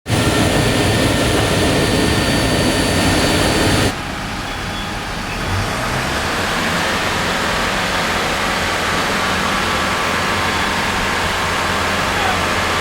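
Steady, loud aircraft noise with no speech. About four seconds in it changes abruptly to a quieter, lower hum.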